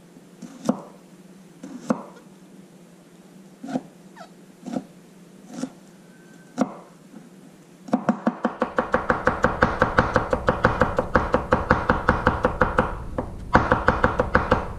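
Kitchen knife chopping on a wooden cutting board. For the first eight seconds there are single strokes about once a second. Then comes fast rapid chopping of about eight strokes a second, with a short pause before a last quick run near the end.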